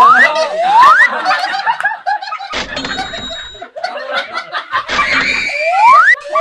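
A group of people laughing loudly together. A clean rising whistle-like tone sounds twice near the start and twice more near the end.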